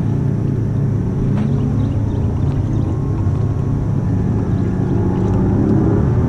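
Mercury 300XS outboard on a bass boat running at low speed, a steady low drone; its pitch and level rise a little near the end.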